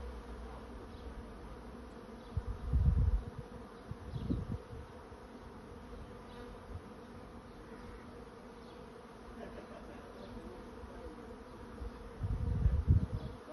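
A honey bee swarm in flight, many bees buzzing together in a steady hum. A few louder low rumbles hit the microphone about three and four seconds in and again near the end.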